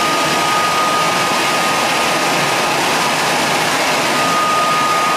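A machine running: a loud, steady rushing noise with a high, steady whine through it.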